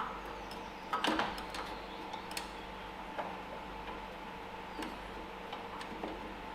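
A few scattered light clicks and taps from handling tools and metal engine parts, the clearest near the start and about a second in, over a steady faint hum.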